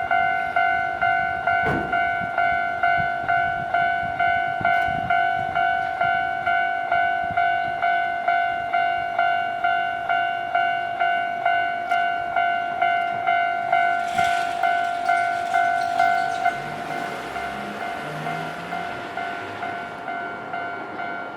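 Japanese railway level-crossing warning bell ringing, a steady electronic ding repeating about twice a second. About fourteen seconds in, a train's rushing noise rises, and the bell goes on more quietly under it.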